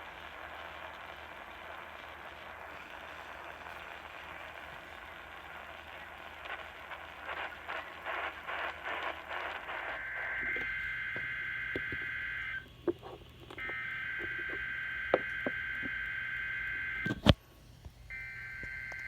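Weather radio receiver hissing with static. About halfway through, the warbling two-tone SAME digital header of an alert begins, sent as three long data bursts with brief gaps. A few sharp clicks fall in between, one loud click in the second gap.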